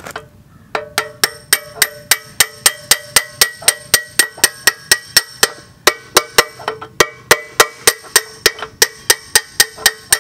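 Hammer striking a blunt punch to drive the steel bucket pin out of a Kubota BX23S backhoe's bucket linkage. The metallic strikes ring and come steadily about four a second, with a short pause near the middle.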